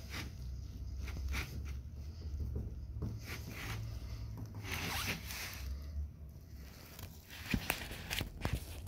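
Fingers rubbing and tapping on the plastic bezel of a Philips LCD TV: scratchy, zipper-like rubbing in short bursts, with a couple of sharp clicks near the end, over a low steady hum.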